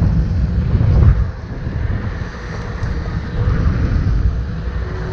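Wind buffeting the microphone of a camera carried on a moving electric scooter: a loud, gusty low rumble that peaks about a second in and then wavers at a lower level.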